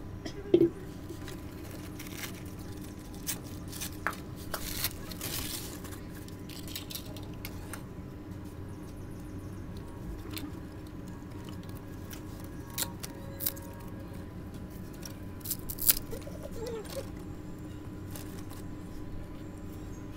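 Wood and crumpled newspaper being handled in a brick wood-fire stove as the paper is set alight: a sharp knock about half a second in, then scattered clicks, knocks and paper rustles over a steady low hum.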